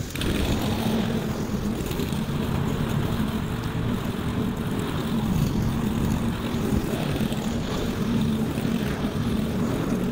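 Walk-behind petrol rotary lawn mower running steadily while cutting grass, a constant engine drone with no change in pitch.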